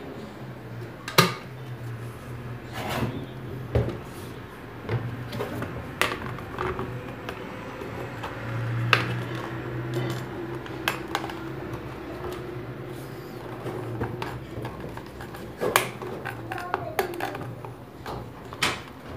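An electric kettle's plastic body being handled, giving a series of separate sharp knocks and light clatter at irregular intervals, with the loudest knocks about a second in, at about six seconds, about nine seconds and at about sixteen seconds.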